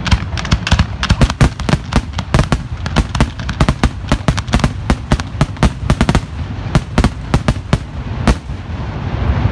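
Aerial fireworks going off in a rapid barrage of sharp bangs and crackles, several a second, thinning out and stopping about eight seconds in.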